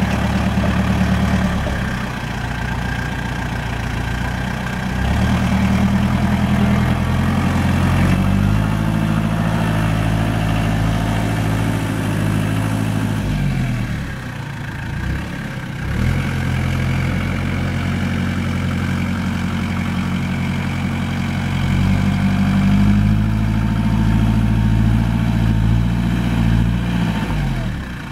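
Compact tractor's engine running while it works a front loader. Its speed rises and falls several times and drops low for a couple of seconds near the middle.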